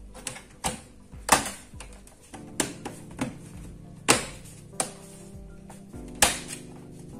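Plastic snap clips of a Lenovo IdeaPad 3 laptop's bottom cover clicking into place as it is pressed down around the edges: a string of sharp, irregular clicks, over soft background music.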